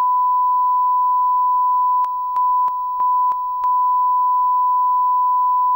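A steady electronic test tone held at one pitch, like a long beep, dipping briefly in loudness three times about two to three and a half seconds in, with a small click at each change.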